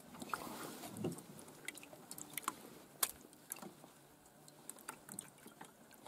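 Faint, irregular small clicks and light knocks, the sharpest about three seconds in.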